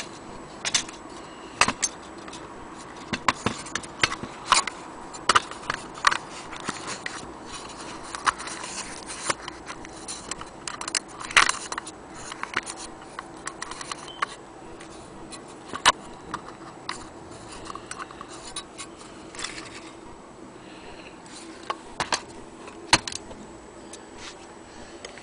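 Irregular clicks, taps and light rattles of a small hard object being handled, busiest in the first half and sparser later, over a faint steady hum.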